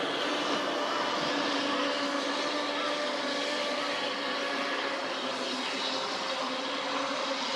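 Radio-controlled racing boats running at speed across the water, their motors giving a steady high whine made of several tones at once.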